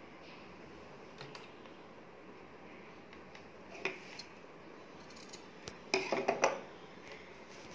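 Stiff brocade fabric being handled and pulled at a sewing machine: a single sharp click, then a short flurry of crisp crackling rustles.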